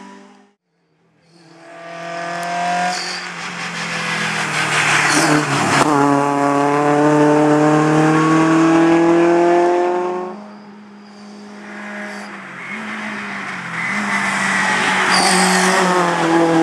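Peugeot 306 Maxi rally car's four-cylinder engine pulling hard at high revs up the hill. After a brief silence at the start, the pitch climbs, jumps at a gear change about six seconds in, drops about ten seconds in as the driver lifts, then rises again as the car accelerates away.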